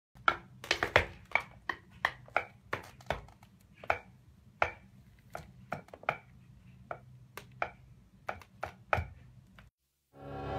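Hard shoe soles tapping on a slatted wooden mat: sharp, irregular taps, some in quick pairs, over a faint low hum. The taps stop shortly before the end, and music fades in.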